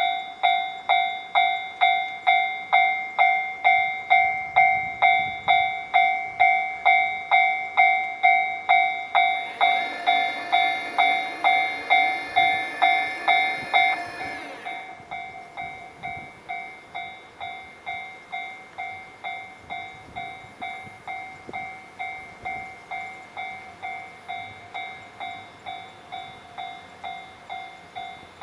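Japanese railroad crossing alarm ringing its electronic bell over and over, about two strikes a second. From about ten to fourteen seconds in, a noisier sound with several tones joins it. After that the bell carries on noticeably quieter.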